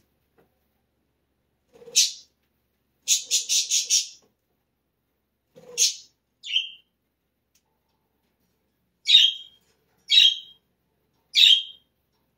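Pet bird chirping in short, high calls: one call, then a quick run of five, two more, and finally three single calls about a second apart.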